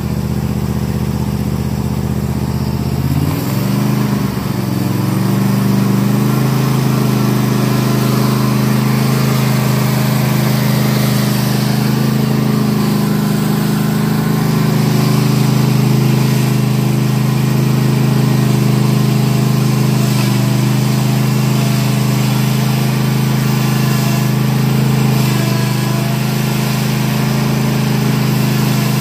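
Toro TimeCutter zero-turn riding mower engine revving up from a low idle about three seconds in, then running steadily at high revs.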